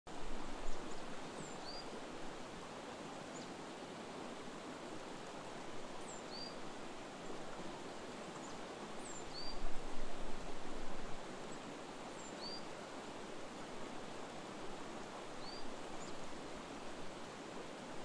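Shallow river rushing over rocks: a steady noise of flowing water. A bird gives a short, high, rising call about every three seconds. A brief low rumble comes about half a second in and again around ten seconds in.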